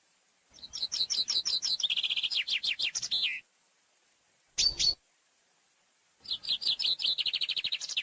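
Common chaffinch singing twice. Each song is a quick run of repeated notes that steps down in pitch and ends in a short downward flourish. A brief double note comes between the two songs.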